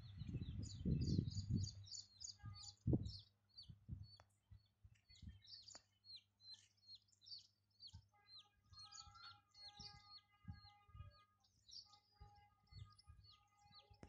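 Small birds chirping and tweeting in quick runs of short calls, faint. Low rumbling thumps in the first few seconds, and a faint steady hum with overtones comes in about eight seconds in.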